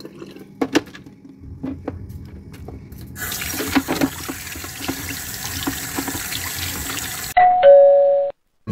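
Tap water running over chunks of beef in a plastic colander, rinsing the meat, after a few light knocks from handling the colander and meat. Near the end the water cuts off and a loud two-note chime sounds for about a second.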